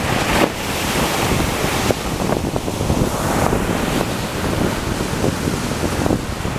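Strong wind buffeting the microphone over the wash of breaking surf, with a louder hiss of surf in the first couple of seconds.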